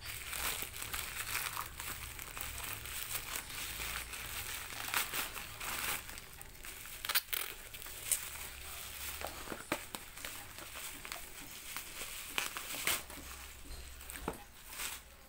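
Plastic packaging crinkling and rustling as a parcel is unwrapped by hand: a plastic mailer bag and a bubble-wrap bag being pulled open and off, with a few sharp crackles.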